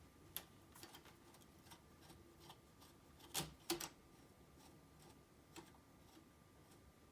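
Faint, scattered light metal clicks and taps from hand tools and small parts being handled while an Oliver typewriter is taken apart, the loudest a pair of sharp clicks around the middle.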